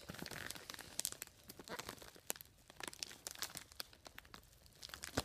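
Rubik's cube packaging torn open by hand: irregular crackling and tearing of the wrapping, with one sharper crackle near the end.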